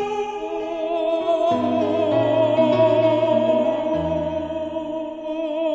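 Background music in a classical, operatic style: a long held note with vibrato over low bass notes that change every second or two.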